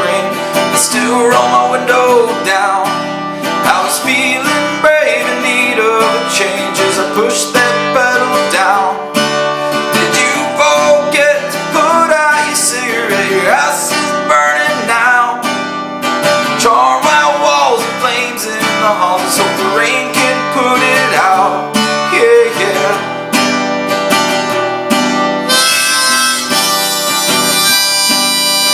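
Strummed acoustic guitar with a harmonica playing a bending melody over it, an instrumental passage with no singing; near the end the harmonica switches to long held notes.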